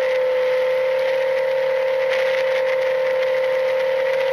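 Electric motor and propeller of a Ranger EX FPV plane, heard from its onboard camera, whining at a steady pitch in cruise, with a rushing hiss of air over it.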